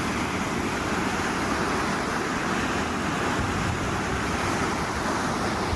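Floodwater of a river in spate rushing steadily over a submerged weir, a constant even rush of fast water.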